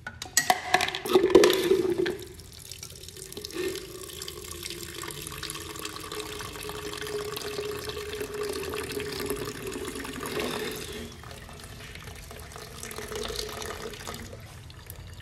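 Flush water draining from a Yamaha R15's radiator cooling system and pouring in a stream into a plastic jug. It is loudest and splashiest in the first two seconds, as the drain opens, then settles into a steady pour.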